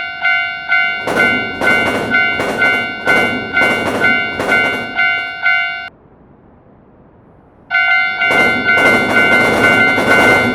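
Railroad crossing warning bell ringing in fast repeated strokes, about two a second, with a rougher pulsing noise joining about a second in. Both cut off about six seconds in, then start again after a short pause near the end.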